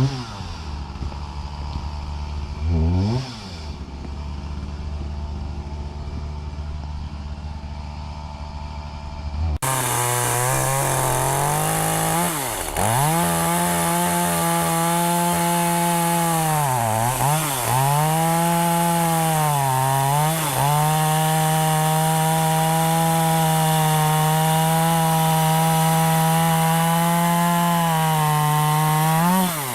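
Two-stroke chainsaw idling, revved briefly once about three seconds in. From about ten seconds in it runs at high revs cutting firewood, its engine note dipping and recovering several times as the chain bites into the wood.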